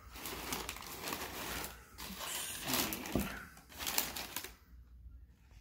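Crumpled brown kraft packing paper rustling and crinkling as a hand digs through it in a cardboard box, dying down near the end.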